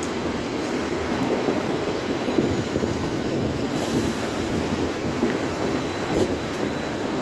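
Steady low vehicle rumble with no breaks.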